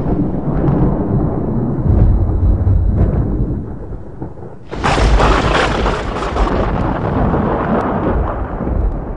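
Thunder: a low rolling rumble fades, then a sharp thunderclap about halfway through rolls out into a long rumble that dies away near the end.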